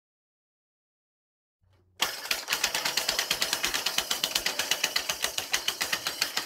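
Silence, then about two seconds in a chainsaw's recoil starter mechanism clicking in a fast, even rattle of about seven clicks a second.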